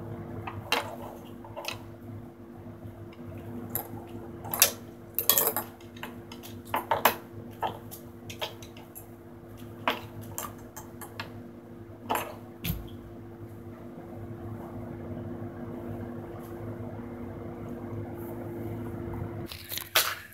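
A steady low hum under scattered sharp clicks and knocks of hard objects being handled, clustered about a quarter of the way in and again just past halfway. Near the end, close, loud handling noise as the camera is picked up.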